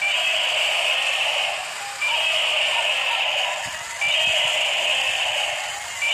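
Tinny electronic sound effect from the small speaker of battery-operated walking toy animals, looping: the same short sound starts suddenly about every two seconds and fades away each time.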